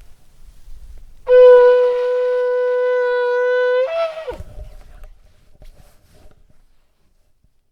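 A shofar blown in one long, steady, loud note of about two and a half seconds. It breaks briefly upward at the end before the note falls away.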